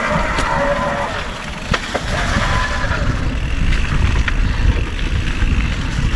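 Electric mountain bike riding over forest singletrack: wind rush on the microphone and tyres rolling over rough ground, with two sharp knocks a little under two seconds in and a faint whine that comes and goes.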